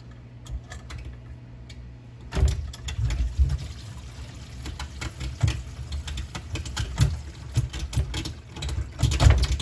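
Scattered metal clicks as a hex key is worked back and forth in the socket under a jammed garbage disposal. About two seconds in, water starts draining and gurgling through the sink drain, with irregular surges and knocks: the jam is freeing.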